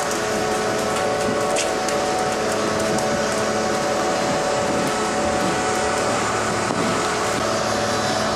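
Steady mechanical hum and whir of cowshed machinery, with a few held tones over an even rushing noise.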